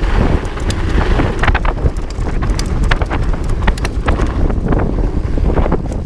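Wind buffeting the microphone on a 2017 Trek Farley EX 8 fat bike riding a rough downhill dirt trail, with irregular clattering knocks and rattles as the bike bounces over bumps.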